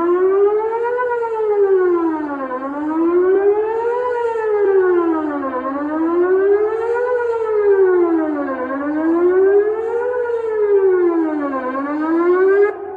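Emergency warning siren sounding a steady wail during a scheduled test, its pitch rising and falling smoothly about once every three seconds. It cuts off abruptly just before the end.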